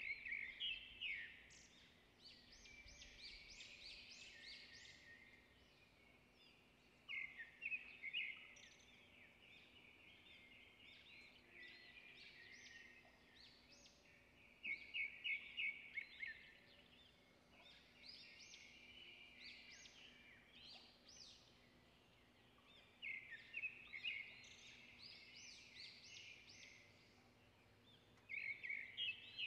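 A songbird singing short phrases of rapid high chirps, repeated every several seconds over faint room noise.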